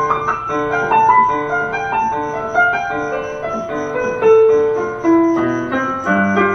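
Electronic keyboard playing a melody of changing notes over sustained lower notes.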